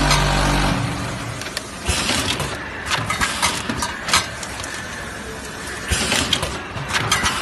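Tea powder packing machine (vertical bag-forming and sealing type) running: a steady low motor hum stops just under a second in, after which its mechanism keeps running with sharp clicks and clunks every second or so.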